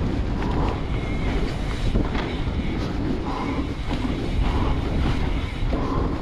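Wind buffeting the microphone of a mountain bike being ridden on a trail, with rough tyre and trail noise and scattered knocks and rattles from the bike.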